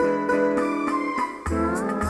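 Live band playing an instrumental intro: keyboard chords held under repeated plucked notes. About a second and a half in, a bass line and a wavering flute melody come in.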